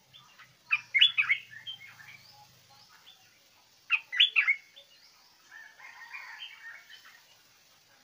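Stripe-throated bulbul singing: two short, loud phrases of quick notes, about a second in and about four seconds in, followed by softer chattering near the end.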